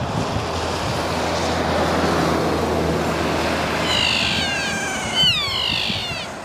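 Kea calling: a run of several high calls that fall in pitch, in the last couple of seconds. They sound over a steady hiss of rain and wind, with a low steady hum in the first half.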